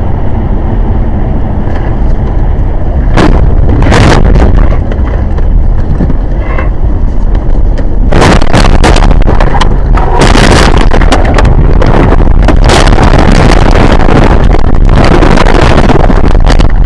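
Loud, distorted rumble of a road vehicle on the move, with frequent crackles and knocks that grow denser from about halfway through.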